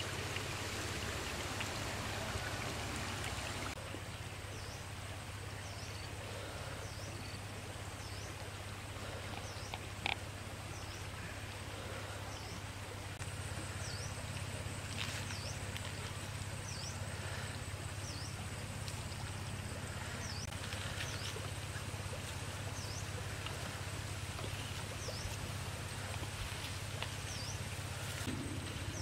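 Outdoor ambience by a stream: a steady rush of background noise with a bird repeating a short, high call about once every second or so. A single sharp click about ten seconds in.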